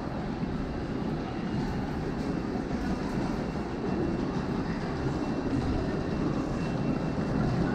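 Steady low rumble in a subway station passageway, with a subway train running on the tracks nearby.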